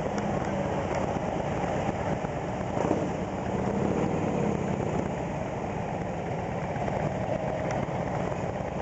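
Several cruiser and touring motorcycle engines running together, idling and rolling off slowly as a pack pulls out.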